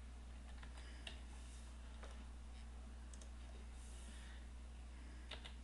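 Faint computer keyboard keystrokes, a few scattered clicks while a word is typed, over a steady low hum.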